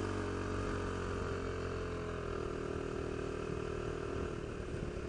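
Motorcycle engine running steadily while cruising along a road, its note dropping slightly about two seconds in.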